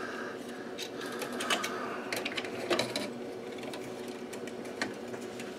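Scattered small clicks and taps of plastic and metal as an analog panel meter is pressed and pried at with a screwdriver, in an attempt to pop it back into its mounting. A faint steady hum lies underneath.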